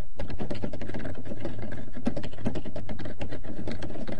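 Typing on a computer keyboard: a quick, uneven run of keystroke clicks as a sentence is typed.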